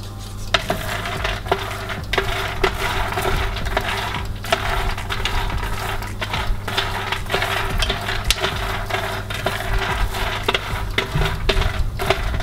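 Wooden spatula stirring red-skinned peanuts on a metal baking tray partway through oven roasting: the nuts rattle and clatter with many small clicks, over a steady low hum.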